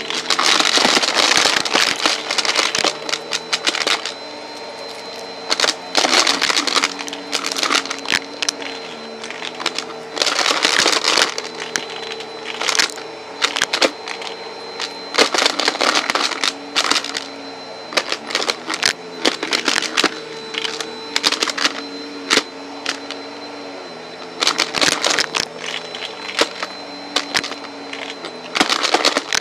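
Vacuum cleaner running with a steady motor whine while coins are sucked up, clattering and rattling through the hose in repeated bursts of a second or two.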